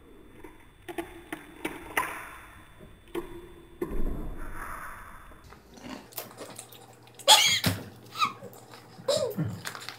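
Crunchy spicy chips (Hot Cheetos) being bitten and chewed: scattered sharp crunches in the first few seconds. Short bursts of a girl's voice break in during the second half.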